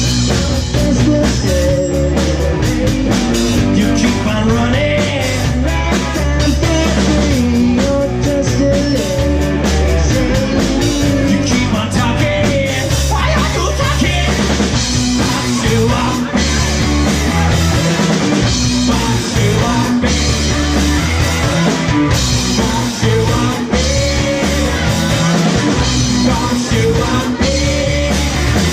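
A rock band playing live, with drum kit, guitar and bass under a singing voice.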